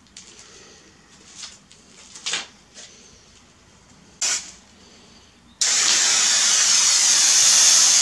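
Rust-Oleum Turbo aerosol spray-paint can spraying: a short burst about four seconds in, then a loud, continuous hiss that starts a little past halfway and keeps going.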